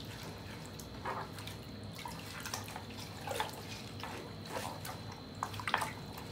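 Water splashing and dripping in a plastic bucket as a hand kneads potatoes in a submerged mesh bag, squeezing their starch into the water. It comes as irregular small plops and drips.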